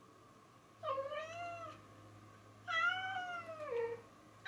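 Domestic cat meowing twice, the second meow longer and dropping in pitch at its end; a third meow starts right at the end.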